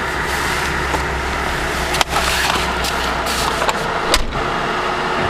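A car's engine running at idle with a steady low rumble, broken by a few sharp clicks and knocks, with a heavier thump about four seconds in.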